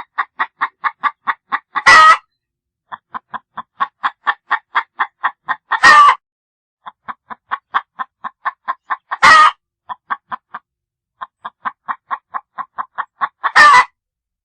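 Domestic hen cackling: a run of quick, even clucks, about six a second, each ending in a loud, drawn-out squawk. The cycle repeats four times.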